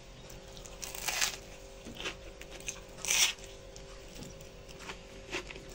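Biting into a pan-fried bread slice topped with cottage cheese: two loud crunches of the crisp toasted loaf, about a second and three seconds in, with quieter chewing clicks between.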